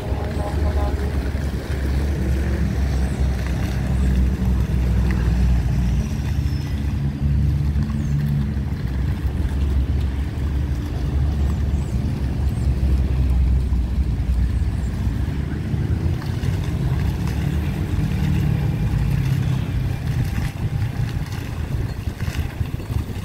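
A low, uneven rumble of wind buffeting the phone's microphone, over the steady splashing of a plaza fountain's water jets and the hum of city traffic.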